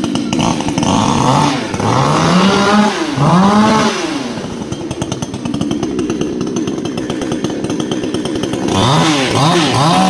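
Chainsaw engine running: revved twice, the pitch rising and dropping back each time, then settling to a lower steady run before being opened up again near the end and held at high revs.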